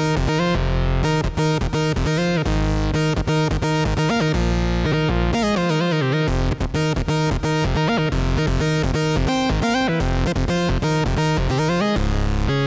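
Arturia PolyBrute analog polyphonic synthesizer playing a plucky, guitar-like patch in fast short notes, with pitch glides about halfway through and again near the end.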